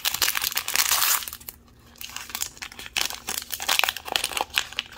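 Thin wrapper bag crinkling and tearing as it is pulled open by hand: a dense spell of crinkling for about the first second, a short lull, then scattered quick crinkles.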